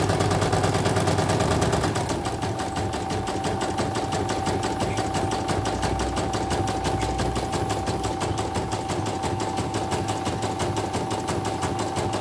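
CNY portable computerized embroidery machine stitching at speed: the needle and rotary hook tick in a rapid, even rhythm. A steady motor whine joins about two seconds in. The machine has just been repaired with a new rotary hook shoe and is running smoothly.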